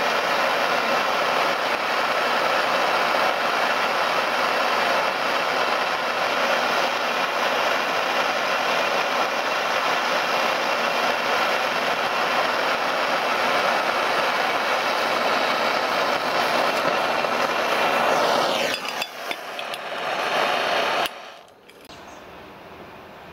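Handheld gas torch burning with a steady hiss, its flame played over melted wax. The hiss falters about 18 seconds in, comes back briefly, and cuts off suddenly near the end.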